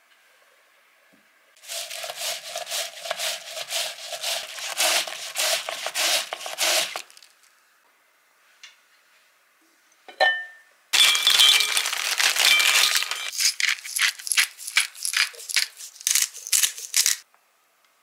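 Kitchen handling sounds: several seconds of fast rattling clicks, then a single ringing clink from a pot's glass lid about ten seconds in, followed by more rapid clicking and rattling.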